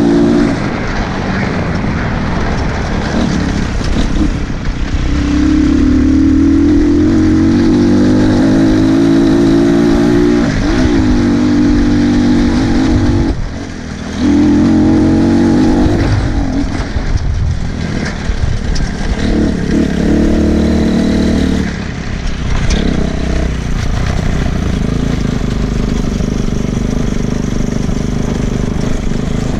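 200 cc dirt bike engine revving hard as it is ridden, its pitch climbing and falling through repeated bursts of throttle, with a short drop in revs about fourteen seconds in.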